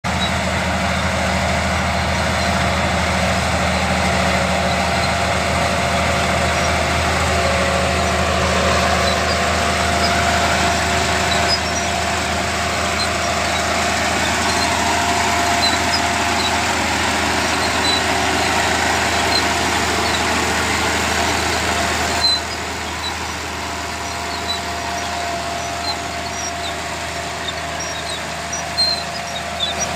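Bulldozer's diesel engine running steadily under work, with a constant low drone and a held whine; it drops to a quieter level about two-thirds of the way through.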